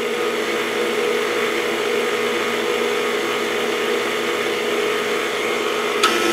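KitchenAid Heavy Duty stand mixer running on slow speed, a steady motor and gear hum as the flat beater mixes flour into cake batter in the steel bowl. Near the end the speed lever is moved, with a click.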